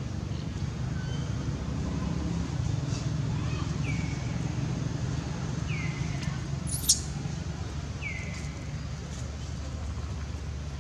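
Faint, short squeaky cries from a baby long-tailed macaque, repeating about every two seconds and each dropping in pitch, over a steady low rumble. One sharp, high click comes about seven seconds in.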